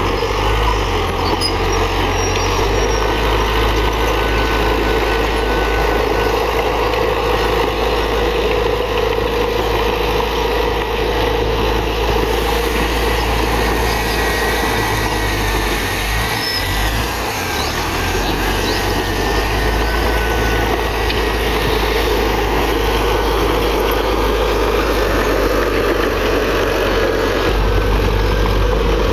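Heavy diesel earthmoving machinery running steadily at working load, with a faint thin squeal drifting in and out now and then.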